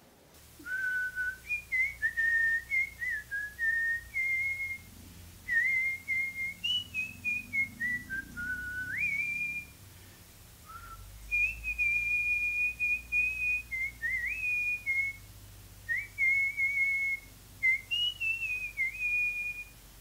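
A person whistling a wandering melody of held notes with quick slides and steps between them, pausing briefly about ten seconds in and again about sixteen seconds in.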